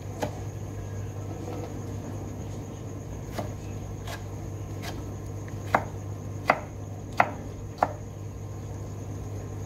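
Kitchen knife chopping tomatoes on a plastic cutting board: scattered knocks of the blade hitting the board, with four sharper strikes about two-thirds of the way in, roughly 0.7 s apart. A steady low hum runs underneath.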